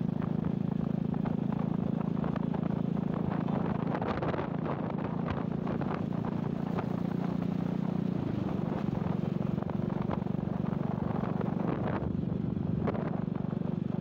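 Motorcycle engine running steadily on the move, under wind and road noise; its hum shifts in pitch about four seconds in and again about eight seconds in.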